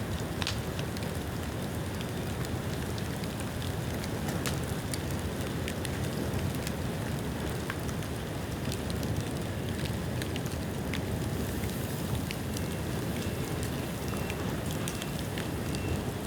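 Bamboo bonfire burning: a steady rush of flames with scattered sharp crackles and pops. The bamboo is rain-wet but burning well.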